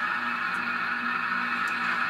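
Soundtraxx Tsunami 2 sound decoder in an N scale Kato Union Pacific FEF steam locomotive playing its standing sounds: a steady steam hiss over a low hum, through the model's small onboard speaker.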